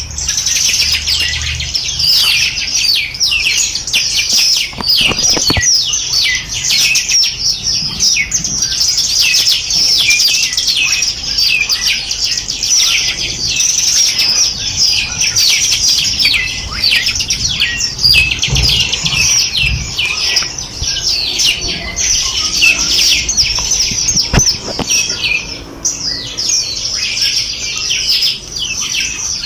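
Many small birds chirping and twittering at once, a dense unbroken chorus of quick high notes and trills.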